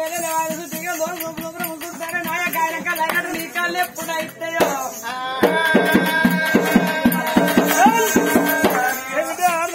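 Oggu katha folk singing to a barrel drum with a jingling rattle, the drum beating steadily under the voice. About halfway through the voice holds one long note over quick drum strokes.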